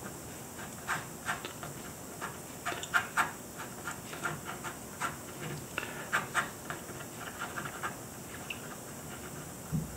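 Pen scratching on drawing paper laid over a sheet of plexiglass: a run of quick, short strokes, several a second, from about a second in until near the end.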